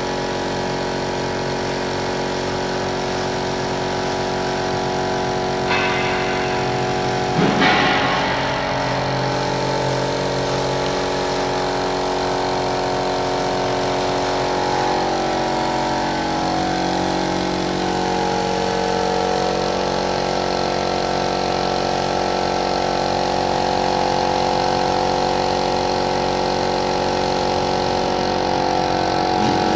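Steady running hum of a motor, with the hiss of a compressed-air paint spray gun spraying, and a short knock about seven seconds in.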